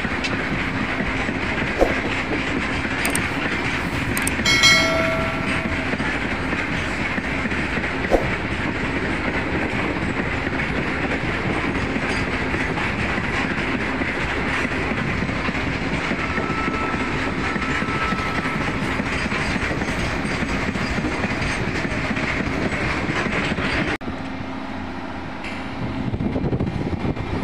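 Steady running of the mobile flash butt rail welding machine's power unit, a constant mechanical drone with a low hum. A short, clear tone sounds about four and a half seconds in, and a couple of sharp clicks come from the equipment being handled.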